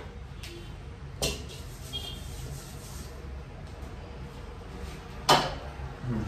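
Two short, sharp knocks of objects being handled, one about a second in and a louder one near the end, over a steady low hum.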